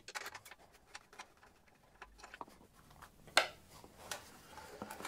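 Small metallic clicks and ticks of an Allen key working a bolt loose on a motorcycle exhaust heat shield, with one louder click a little over three seconds in.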